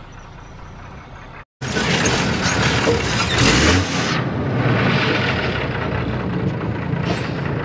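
Tata S-model 4x4 truck engine running, heard from inside the cab as the truck drives into a shallow river. About a second and a half in, the sound cuts out briefly and comes back much louder, with a loud rushing noise over the engine.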